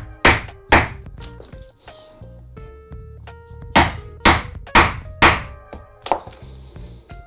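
A mallet strikes the spine of a Bestech Penguin folding knife, a D2-bladed liner lock, driving the blade into a block of wood to chisel out chips. Sharp knocks: two hard ones in the first second, a pause, then four hard ones about half a second apart from about four seconds in. Background music plays under the knocks.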